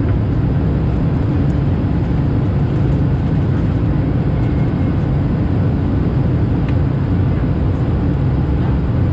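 Steady low cabin noise inside an Airbus A220-300 in flight, made by airflow over the fuselage and its Pratt & Whitney PW1500G geared turbofan engines, even and unbroken.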